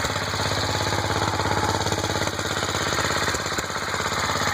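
Whizzer single-cylinder four-stroke bicycle engine running steadily, a fast even chatter of exhaust pulses. It is running pretty good in the cold after its carburettor was cleaned out.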